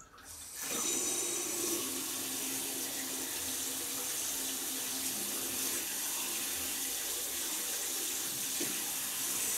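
Water from a newly installed single-lever basin faucet, turned on and running in a steady stream into the washbasin and over a hand. The flow builds up within the first second, then holds steady.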